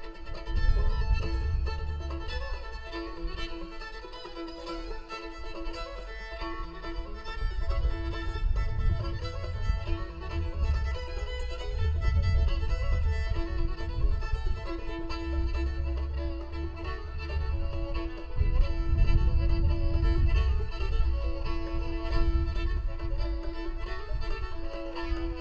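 Old-time fiddle tune played on fiddle with clawhammer-style banjo backing, the fiddle bowing a melody over a steady drone note. A low rumble runs underneath.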